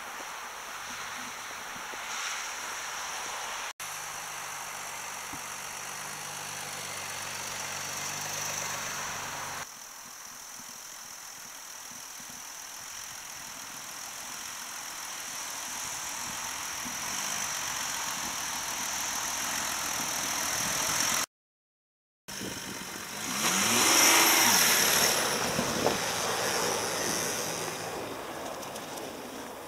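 Audi A6 Allroad 3.0 TDI's V6 turbodiesel engine running as the car drives through deep snow, in several edited takes with a brief silent gap about three-quarters of the way through. Just after the gap the engine revs up, rising in pitch, the loudest part.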